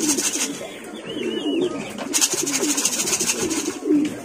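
Domestic racing pigeons cooing over and over, several low coos overlapping. A short high chirp about a second in, and a fast, even, high-pitched rattle at the start and again about two seconds in.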